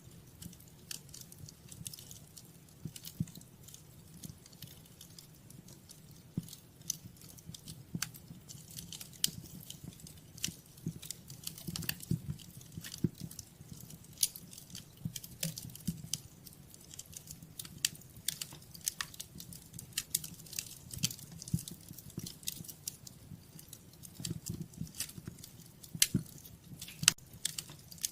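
Wood fire crackling: irregular sharp cracks and pops, some louder than others, over a low steady rumble from the flames.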